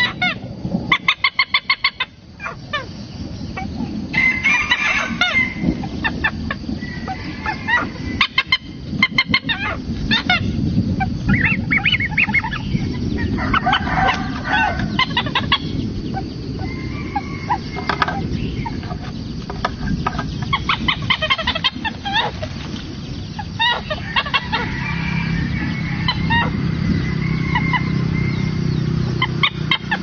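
Oriental pied hornbills calling repeatedly in short bursts, with a quick run of rapid notes about a second in.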